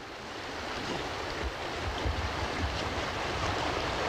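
River water rushing over a stony bed, a steady hiss that fades in over the first second, with uneven low rumble from wind on the microphone underneath.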